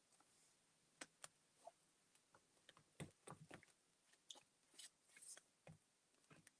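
Near silence with faint, scattered clicks and paper rustles from handling a glue stick and pressing collage paper down into an art journal, a small cluster of them about three seconds in and another about five seconds in.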